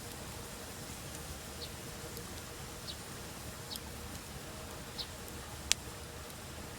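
Wood campfire burning with a steady low noise and scattered faint crackles, then one sharp, loud pop near the end.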